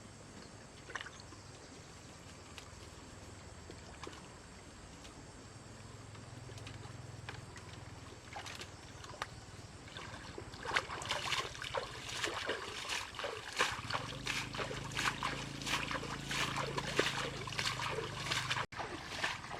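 Water sloshing and splashing, light at first and turning busy with many quick splashes about halfway through. A low steady hum joins underneath in the second half.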